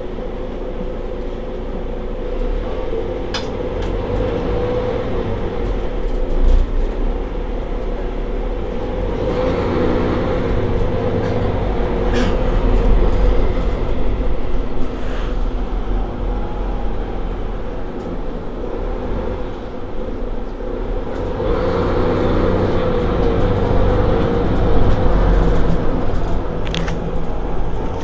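Mercedes-Benz Citaro G C2 Euro 6 articulated diesel bus idling while standing still: a steady low engine hum that swells louder twice, with a few brief sharp clicks.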